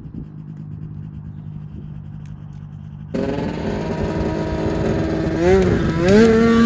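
Snowmobile engine running with a steady low hum, then after an abrupt cut, running louder and revving up twice in quick succession.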